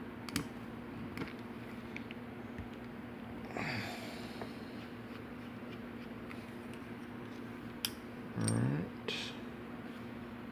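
A steady low electrical hum with a few faint light clicks and taps from a lock and tools being handled, and a brief low voice-like sound near the end.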